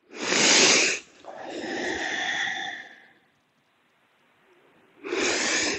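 A person breathing deeply and audibly during slow tai chi movements: a loud breath lasting about a second, then a softer, longer one, and another loud breath near the end.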